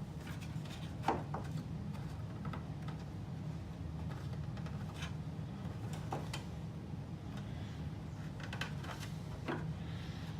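Scattered light clicks and taps of hands pushing small rubber feet into the underside of a plastic game board, the sharpest about a second in, over a steady low hum.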